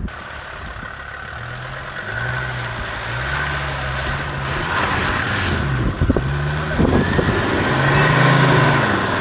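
A 4x4's engine running on and off the throttle, its pitch rising and falling several times as the driver works the accelerator, with a couple of short knocks about two-thirds of the way through.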